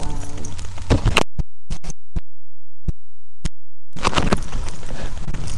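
Webcam audio glitch: a steady low electronic buzz with a few sharp clicks in it, lasting under three seconds, cutting in and out between bursts of rustling and thumps as a dog moves about close to the microphone.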